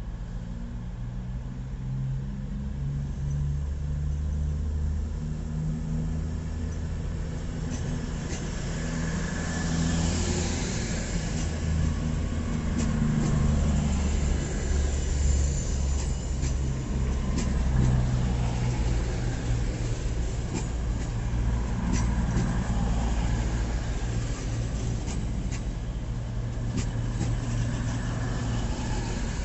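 Diesel train engines running at a station, their low note shifting in steps as the revs change, with a spell of hiss about ten seconds in and scattered clicks later on.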